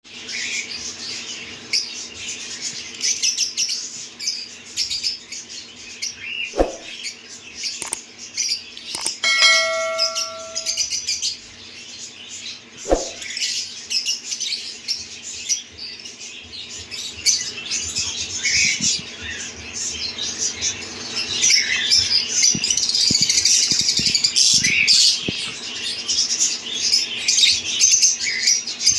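Lovebirds chattering and chirping continuously in a high register, with frequent squawks that get busier in the second half. About nine seconds in, a single bell-like ring sounds for about a second and a half, and there are a couple of sharp clicks.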